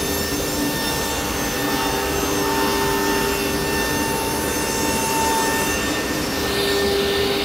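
Table saw running and cutting wood: a steady whine over a loud rush of noise, cutting off suddenly near the end.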